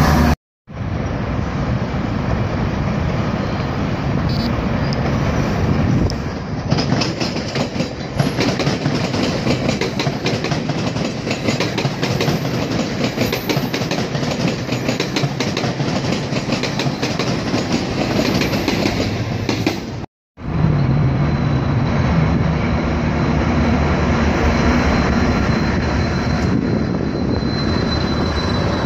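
GO Transit commuter train of bilevel coaches passing close below, a steady rumble with the wheels rapidly clicking over the rails. The sound drops out briefly twice, and after the second break a faint steady high tone runs over the rumble.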